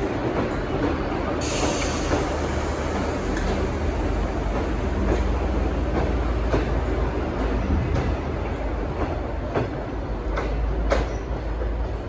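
Locomotive-hauled diesel passenger train rolling out of the station, a steady low rumble with wheels clicking over rail joints every second or two. A high hiss sets in about a second and a half in and fades toward the end.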